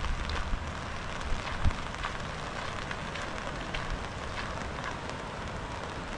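Steady rain falling, with many separate drops pattering close by; a couple of louder thumps about a second and a half in.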